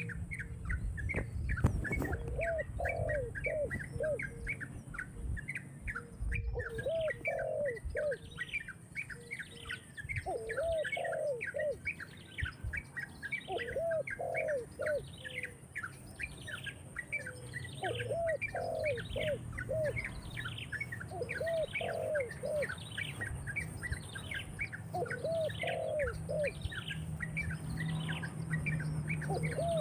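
Birds calling: a steady run of high, down-slurred chirps, about two to three a second, with groups of three to five lower, arched notes every few seconds.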